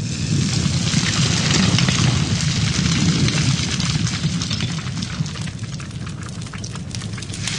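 Fire crackling and hissing, a dense run of small pops over a steady rush.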